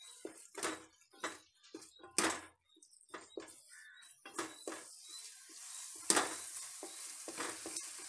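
Wooden spatula stirring and scraping fried onions and tomatoes in a metal pot, with repeated knocks against the pot. A frying sizzle grows louder about halfway through.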